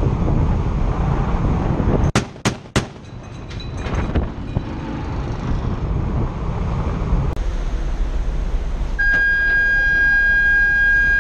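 Wind buffeting the microphone over a warship's deck at sea, with a few sharp clicks about two seconds in. From about nine seconds in a steady, high-pitched horn-like tone sounds without a break.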